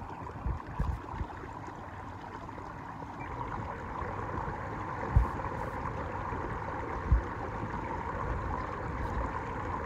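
Water rushing and gurgling along a kayak's hull as a bow-mounted electric trolling motor pushes it, growing a little louder after about three seconds. A few short low thumps break in, the clearest about five and seven seconds in.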